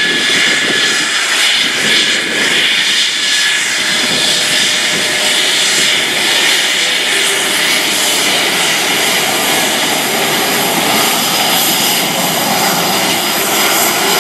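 F-16 Fighting Falcon's jet engine running at taxi power as the fighter rolls past, a steady rushing noise with high whistling tones over it.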